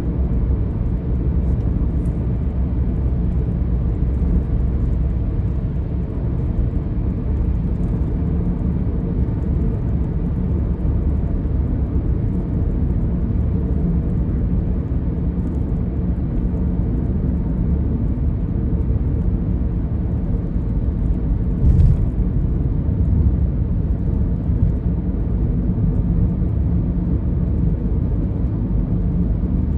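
Steady low rumble of a car driving, road and engine noise as picked up by a dashcam inside the cabin, with a single thump about two-thirds of the way through.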